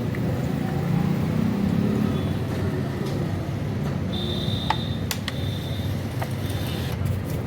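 Steady low rumble of vehicle noise, with a few sharp clicks and short high squeaks near the middle.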